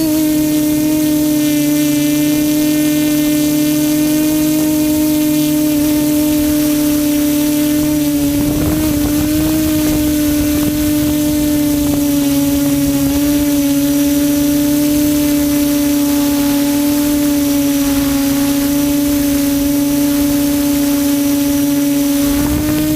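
QAV400 quadcopter's electric motors and propellers humming steadily in flight, one strong tone with many overtones. About nine seconds in the pitch wavers briefly with a rush of air.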